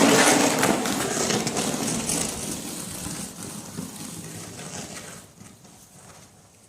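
Snow shovel scraping and pushing through thick, heavy snow, a dense crunching scrape that fades away over a few seconds.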